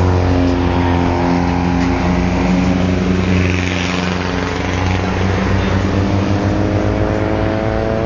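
Several car engines running at a fast idle, their engine notes holding steady. One steps up in pitch about two seconds in, and the revs climb slowly near the end.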